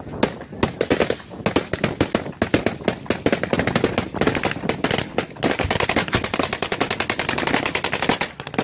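Automatic gunfire: a few scattered shots, then long, rapid bursts of many shots a second, heavy fire aimed at an approaching truck bomb.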